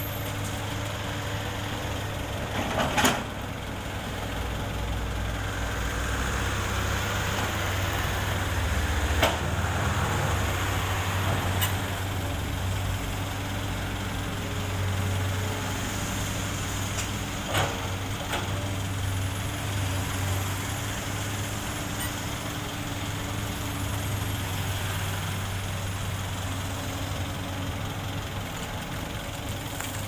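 Komatsu PC200 excavator's diesel engine running steadily, with a few sharp knocks from the work, the loudest about three seconds in.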